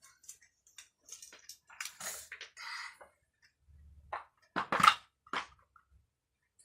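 Wooden toy blocks being handled and set down: a string of irregular light clacks and knocks, with the loudest cluster about five seconds in.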